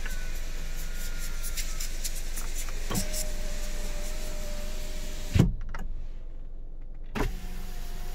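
Hyundai Avante's electric power-window motor running as the door glass moves, a steady whine that stops with a thump when the glass reaches its stop. After a short pause the motor starts again with a knock and whines on near the end.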